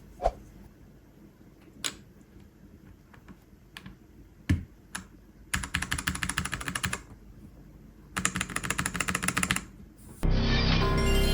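Typing on a mechanical keyboard: a few single key presses, then two quick bursts of fast rattling keystrokes, about a second apart. Music starts near the end.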